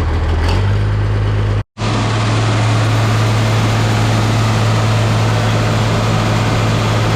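A large engine running steadily with a strong low hum, stepping up slightly in speed about half a second in; the sound cuts out for a moment shortly before the two-second mark.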